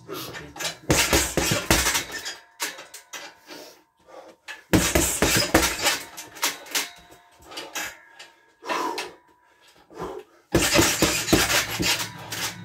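Boxing gloves striking a heavy punching bag in quick combinations: three bursts of punches with pauses between them, starting about a second in, near five seconds and near the end.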